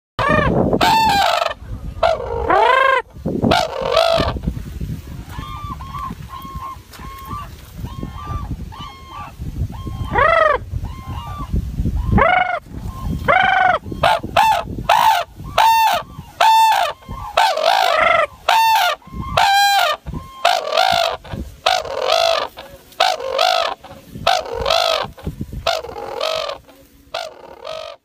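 Red-crowned cranes calling: a long series of loud, trumpeting calls with their bills raised skyward. The calls come thick and fast through most of the stretch, with a softer run of shorter calls a few seconds in.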